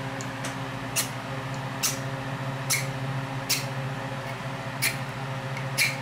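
Flint striker rod scraped with a metal striker, six short rasping strikes about a second apart, sparks thrown at shaved WetFire tinder that has not yet caught.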